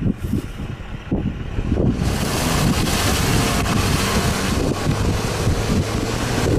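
Wind buffeting the microphone over the low running of a Subaru Outback's engine as the car drives slowly through churned mud. The wind noise grows louder about two seconds in.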